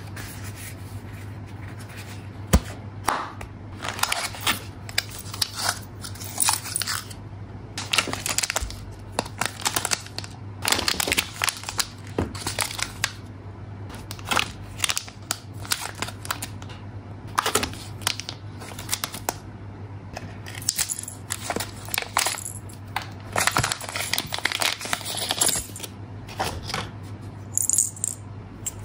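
Unboxing handling noise: rustling and crinkling of tissue paper and foil bags, with scattered sharp clicks and taps as the box and parts are handled.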